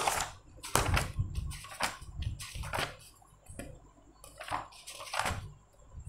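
Notebook pages being leafed through by hand: an irregular run of quick papery swishes and rustles.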